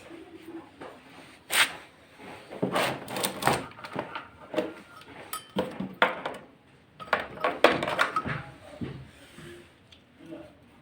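A series of irregular knocks, clicks and clatters as parts of a washing machine are handled and moved during a repair, with the loudest knocks spread through the first eight seconds.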